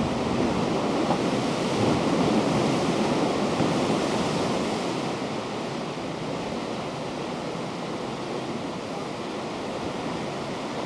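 Steady rushing of ocean surf mixed with wind. It swells over the first few seconds, then eases to a softer, even wash.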